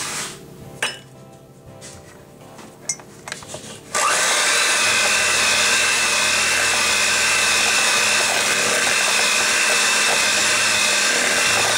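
Electric hand mixer switched on about four seconds in and running steadily with a high whine, its beaters beating an egg into creamed sugar and butter in a plastic bowl; it cuts off near the end. Before it starts, soft background music and a couple of light clicks.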